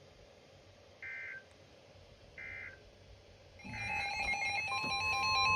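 Emergency alert broadcast tones. Two short electronic beeps come about a second and a half apart. From about 3.7 seconds a loud, rapidly stepping digital data tone starts, and about a second later a steady single-pitch alert tone joins it, the alert header and attention signal that precede a weather warning.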